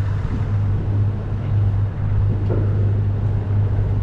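Steady low machine hum aboard a small fishing boat, with an even wash of wind and water noise over it.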